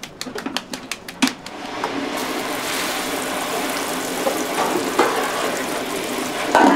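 Raw hamburger patty sizzling on an oiled flat-top griddle: a steady frying hiss that starts about two seconds in, after a run of light clicks. A brief louder knock comes near the end.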